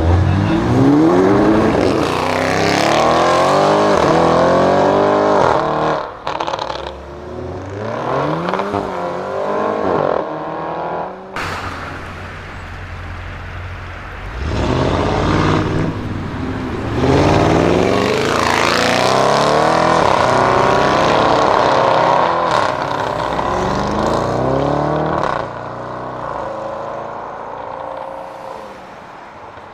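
Audi RS6 Avant C7's twin-turbo 4.0 V8 through a Milltek exhaust, accelerating hard twice, its note rising through several gear changes. On the second run it holds a high steady note for several seconds before easing off. A single sharp crack about eleven seconds in.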